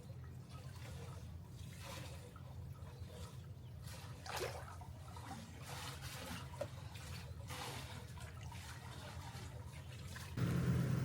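Soft splashing and trickling of water over a steady low hum. About ten seconds in, a louder steady low rumble cuts in abruptly.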